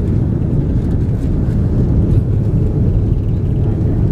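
Cabin noise inside an Airbus A330-243 rolling out on the runway after touchdown: a steady, loud low rumble from the wheels on the runway and the Rolls-Royce Trent 700 jet engines, with the spoilers deployed.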